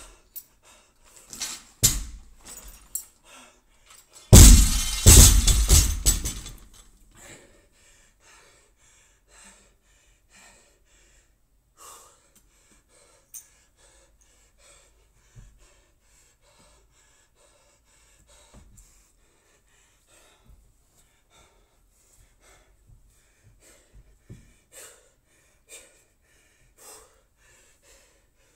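A loaded barbell with bumper plates dropped from overhead onto a rubber gym floor about four seconds in, hitting hard and bouncing and rattling for about two seconds. After it come faint gasping breaths and small knocks as the lifter rests over the bar.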